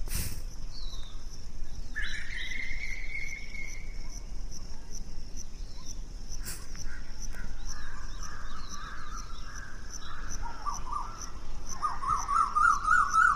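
Crickets or other insects chirring steadily in quick regular pulses, with birds calling over them: one held call about two seconds in and a trilling call near the end. A metal ladle clinks against the aluminium curry pot twice, at the start and about halfway through.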